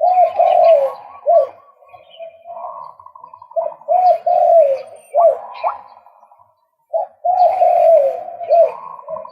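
Male white-breasted waterhen calling in three loud bouts. Each bout is a run of repeated arched, hooting notes over a faster, higher stuttering series, with short pauses between bouts.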